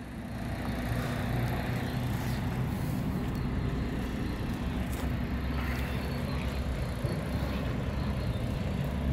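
A steady low engine drone, as from a vehicle or machine running at idle.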